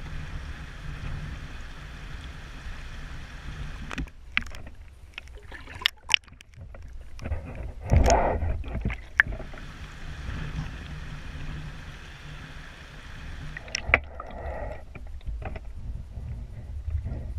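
River current rushing and sloshing around a submerged camera, a steady low rumble broken by scattered sharp clicks and knocks. There is a louder sloshing surge about halfway through.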